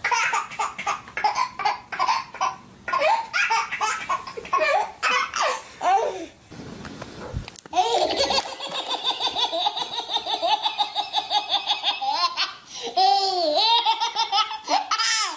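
Babies belly-laughing in repeated fits. After a short pause about seven seconds in comes a long run of rapid, breathless laughs, about five a second, then higher, squealing laughs near the end.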